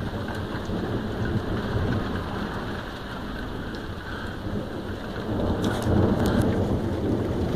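Heavy rain pouring, with a low rumble of thunder underneath that swells louder about three-quarters of the way through. A few sharp taps of raindrops come through near the swell.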